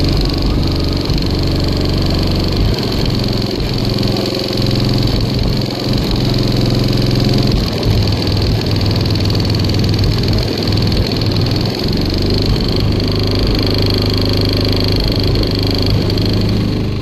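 Six 18-inch Sundown Audio ZV4 subwoofers playing deep bass at a very high level, heard from inside the car cabin. The system peaks at around 23 Hz.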